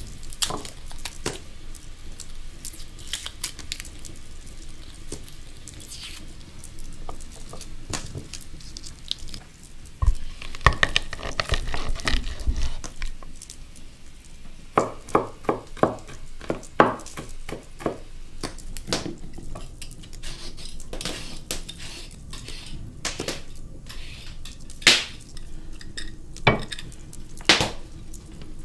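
Kitchen utensils clinking and knocking against pots and dishes during cooking, scattered clinks with a quick run of knocks about halfway through.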